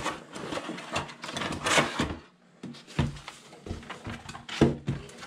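Cardboard box scraping and rustling as a plastic candle-maker unit is pulled out of it, with a few sharp knocks, the loudest near the end as the unit is set down on a wooden table.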